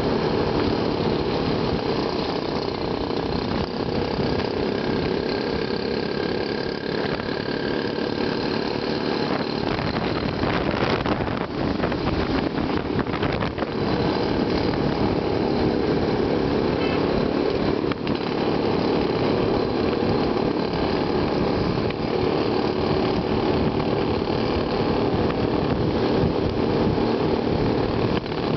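Engines of vehicles on the move running steadily, with road and wind rumble; a few seconds of rattling clicks come about halfway through.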